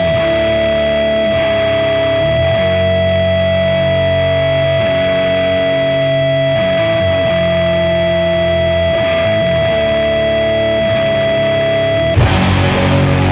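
Doom metal: slow, heavily distorted electric guitar chords ring out and change every two to three seconds under a long held high note. About twelve seconds in the full band comes in with a crash.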